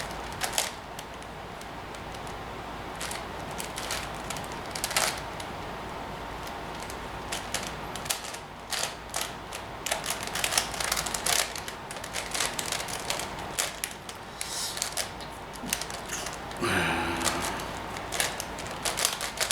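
Plastic 5x5 Rubik's cube being turned by hand: its layers click and clack in irregular runs, sparse at first and quicker and denser from about eight seconds in.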